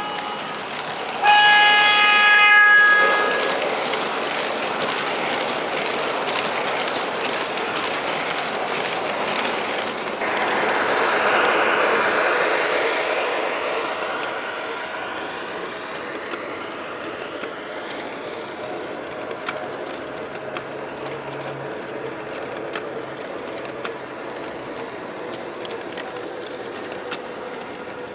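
MTH R40 model subway train's DCS sound system: a horn blast about a second in, then the train's running sound, which swells near the middle and slowly fades, with faint clicking from the wheels on the track.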